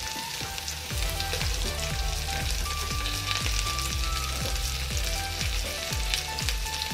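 Green bell pepper strips sizzling steadily in hot vegetable oil in a nonstick frying pan, with background music with a steady beat underneath.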